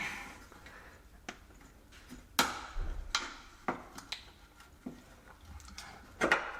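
Irregular clicks and clinks of hand tools and metal parts being handled, about half a dozen sharp knocks, the loudest about two and a half seconds in.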